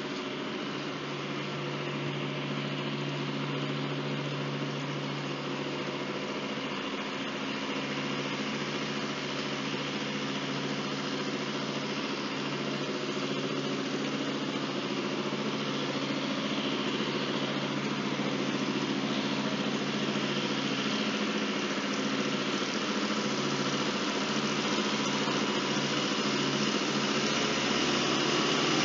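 A trolley car's engine running as the car approaches slowly along the track: a steady hum that grows gradually louder.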